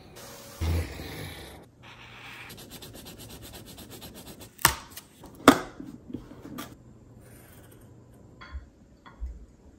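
Pencil and crayon scratching across cardboard and paper in quick, repeated strokes, broken by a few sharp taps, the two loudest a little under a second apart around the middle.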